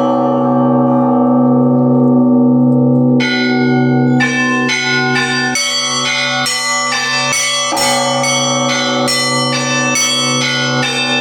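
Russian church bells rung by hand in an improvised festive peal (zvon): a large bell hums on alone for about three seconds, then the smaller bells come in with quick strikes, about two a second, over its ringing.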